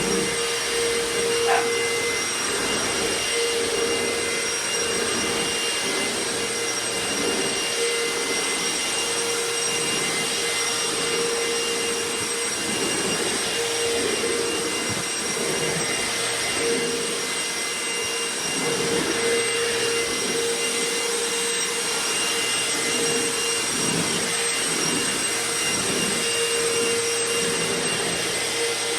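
Royal ProSeries Quick Rewind vacuum cleaner running steadily: a constant motor whine over the rush of air.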